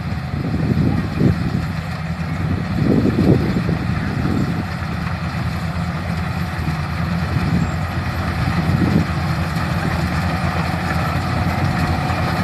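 Rice combine harvester engine running steadily with a low, even drone.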